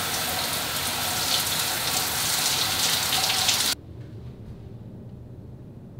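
Overhead rainfall shower running, water pouring down in a steady spray; it cuts off abruptly a little under four seconds in, leaving only a quiet low room hum.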